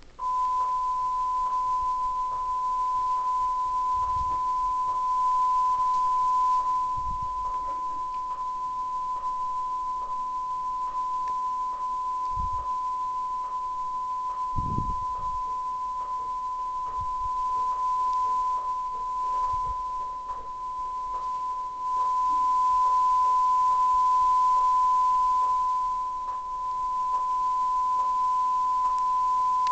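Steady 1 kHz test tone from the end of a VHS tape, played over a white screen through a TV's speaker. It starts abruptly, with faint clicks ticking evenly about three times every two seconds and a few soft low thumps.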